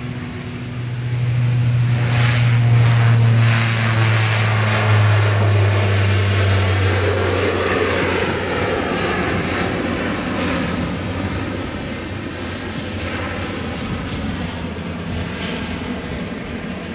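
Bombardier Dash 8 Q400 turboprop airliner taking off at full power: a loud, low, steady propeller drone that swells over the first two seconds, peaks as the plane passes, then fades steadily as it climbs away.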